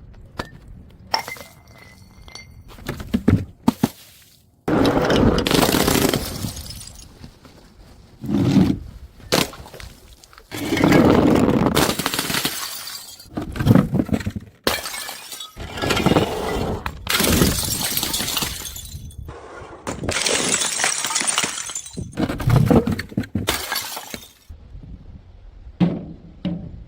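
Glass bottles smashing one after another: a series of sharp crashes, each followed by a second or two of shattering glass.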